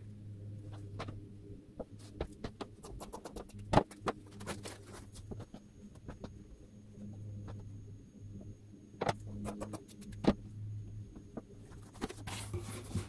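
Handling fabric and interfacing pieces on a cutting mat: scattered light taps, clicks and rustles, with a few sharper knocks about four, nine and ten seconds in, over a low steady hum.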